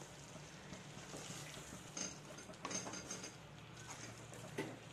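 Wooden spatula stirring thick chicken masala in a coated pan, giving a few soft knocks and scrapes against the pan from about two seconds in and again near the end.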